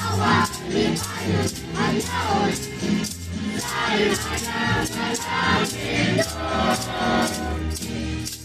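Children's choir singing a Christmas song over accompaniment with a steady repeating bass line, with a tambourine shaken and struck in time on the beat.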